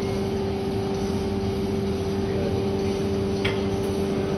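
A steady mechanical hum with a constant mid-pitched tone over a low rumble, and a single click about three and a half seconds in.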